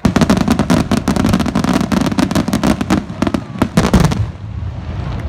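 Fireworks going off in a rapid barrage of bangs and crackling, with a deep boom beneath. It starts suddenly and eases off about four seconds in.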